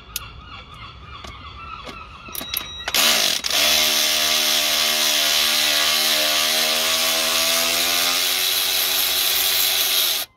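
Cordless electric ratchet motor whining steadily for about seven seconds as it spins out a stubborn bolt, then cutting off suddenly near the end; a few light clicks come before it starts.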